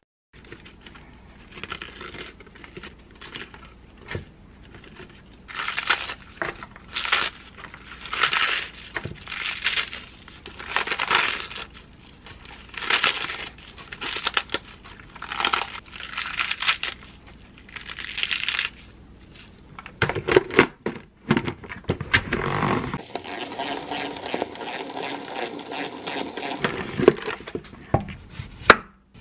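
Iceberg lettuce leaves torn by hand into large pieces over a plastic bowl: a dozen or so ripping sounds, roughly one a second, starting a few seconds in.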